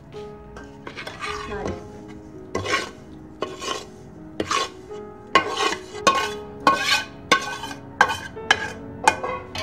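A metal spoon scraping and knocking against a tilted steel bowl, emptying roasted semolina and desiccated coconut into an aluminium pot: some scraping, then about a dozen sharp clinks, roughly one every two-thirds of a second.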